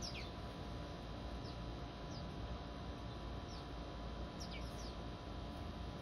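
Small songbirds chirping: about half a dozen short, high calls that slide downward, scattered irregularly, over a steady low background rumble.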